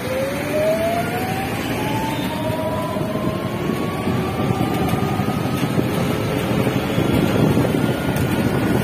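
Motorbike riding through traffic, its engine whine rising steadily in pitch as it picks up speed, over wind buffeting the microphone and road noise.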